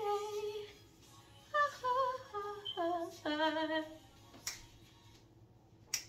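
A woman's voice singing a melody in short phrases with a wavering pitch, stopping about four seconds in. Two sharp clicks follow, the second near the end.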